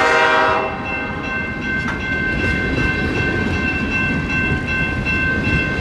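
Empty coal cars of a freight train rolling past with a continuous rumble and rattle. A locomotive horn chord trails off in the first second, and a crossing signal bell rings steadily throughout.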